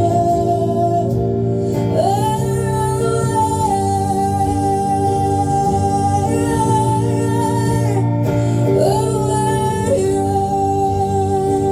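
Live acoustic performance: a woman singing long held notes over acoustic guitar, sliding up into notes about two seconds in and again near nine seconds.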